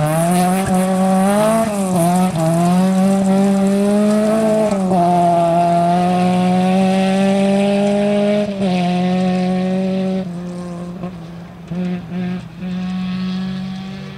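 Rally car engine at full throttle: revs climb in the first couple of seconds, then are held high and steady. After about eight seconds the pitch drops in steps and the engine fades away, with a few brief lifts of the throttle near the end.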